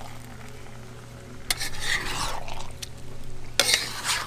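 Metal spatula scraping and clinking against a wok as sauce-coated fish and vegetables are folded together, in two bouts: one about a second and a half in and a shorter one near the end, over a steady low hum.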